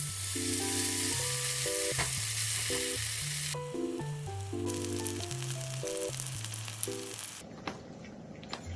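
A steady hiss lasting a few seconds, breaking off and then coming back for another three seconds or so, over light background music.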